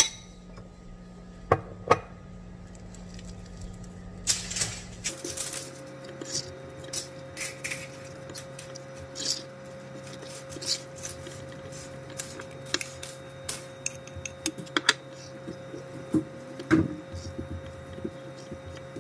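Metal fork scraping and clinking against a ceramic bowl while flour is stirred into a wet tuna dough, with irregular clicks throughout. A steady low hum sits underneath and shifts in pitch about five seconds in.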